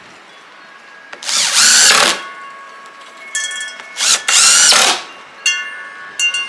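Handheld power drill run in short trigger pulls: two longer runs of about a second each, rising in pitch as the motor spins up, with several brief blips of motor whine in between and near the end.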